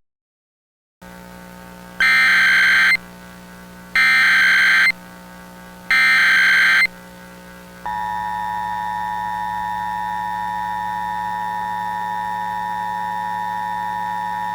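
Emergency Alert System tones over a low steady hum: three loud SAME header data bursts, each about a second long with a second's gap between them, then, about eight seconds in, the steady two-tone EAS attention signal that announces an alert message.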